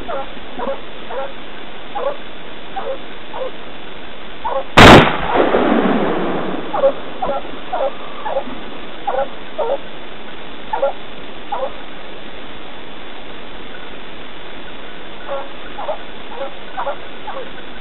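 Hunting dogs barking in short, faint, repeated barks while on a wild boar; nearly five seconds in, a single loud gunshot is fired at the boar and echoes for about two seconds, then the barking carries on.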